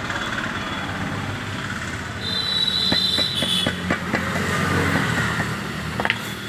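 Sharp knocks and taps of hard parts while the ceramic seat of a 12 mm pump mechanical seal is pressed into a jet pump's housing, with a brief high squeal about two seconds in, over a steady background hum.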